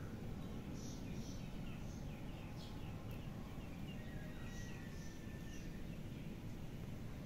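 Outdoor ambience of small birds chirping, with many short high chirps coming and going over a steady low background noise.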